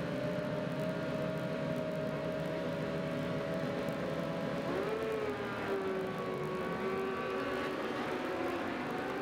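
A pack of superbike engines running together, with a sharp rise in engine pitch about five seconds in as the bikes pull away on the warm-up lap.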